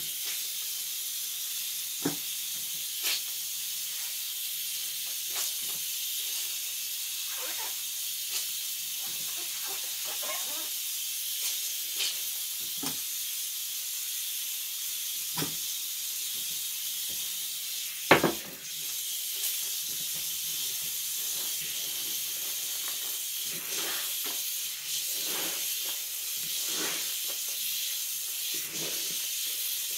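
A steady high-pitched hiss, with scattered light clicks and knocks; the loudest knock comes about eighteen seconds in.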